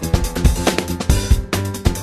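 Music with a steady drum beat and bass, the film's soundtrack.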